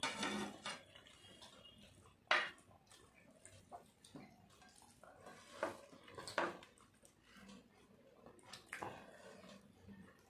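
Ceramic plates and bowls clinking and knocking on a glass tabletop while people eat rice by hand, with a few sharp clinks, the loudest about two seconds in.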